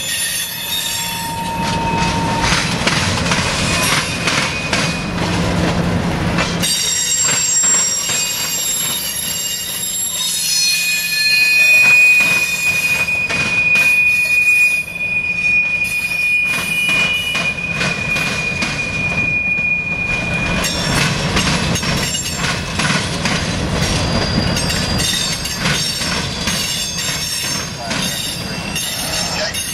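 CSX freight train's cars rolling over the Floyd Street rail diamond, wheels clattering across the crossing. Metal-on-metal wheel squeal rises and falls, with one long high steady squeal from about ten to twenty seconds in.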